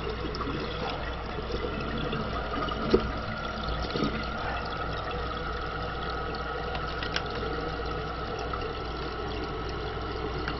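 Toilet tank fill valve running, water flowing steadily into the tank, with a few light clicks, the sharpest about three seconds in.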